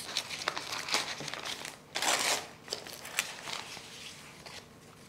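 Paper wrapping crinkling and rustling as it is pulled away from a plant by hand: a run of small crackles, with a louder rustle about two seconds in, dying down near the end.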